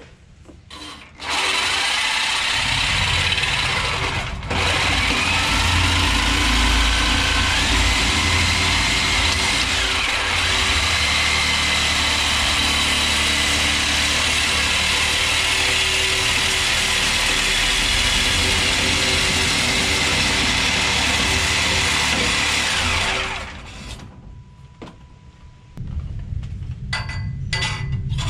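Reciprocating saw cutting through the rusted steel exhaust pipe at the old muffler. It runs steadily with a whining motor for about twenty seconds, with a brief stop about four seconds in, then stops and starts again in short runs near the end.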